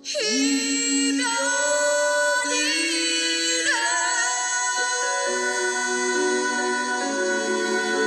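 Background music: a slow, sustained melody begins suddenly right at the start, its long notes sliding from one pitch to the next.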